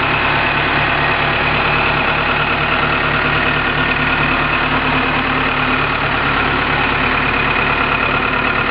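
An engine idling steadily, with an even running note that does not change.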